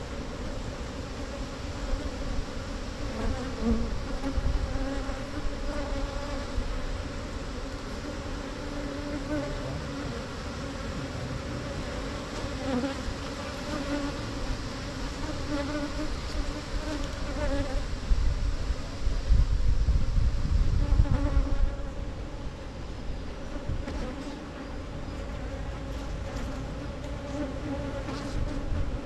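A swarm of wild honeybees buzzing steadily around their exposed comb, a continuous hum. A low rumble swells for a few seconds about two-thirds of the way through.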